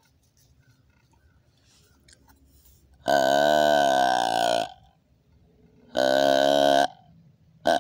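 A 'Mature Buck' grunt-tube deer call blown in imitation of a buck's grunt: a long grunt of about a second and a half, a shorter one a little later, and a brief grunt at the very end.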